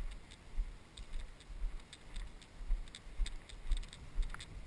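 Walking footsteps swishing through knee-high wet grass, about two steps a second, each with a low thud from the body-worn camera jolting, over low wind rumble on the microphone.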